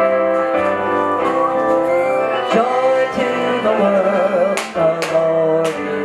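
Music with singing: a voice with vibrato over sustained instrumental tones.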